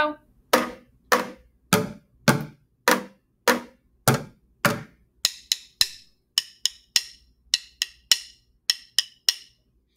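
Bucket drumming with drumsticks: eight steady strokes on the bucket, alternating pairs on its sides and its head, then about halfway through four quick groups of three sharper clicks of the sticks struck together.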